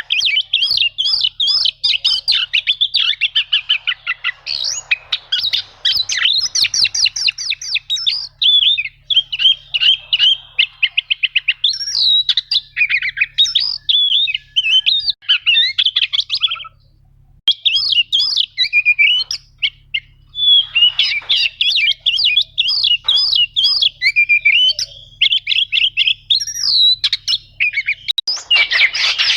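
Oriental magpie-robin (kacer) singing a long, rapid run of high chattering and rolling trilled notes, with a short break just past the middle.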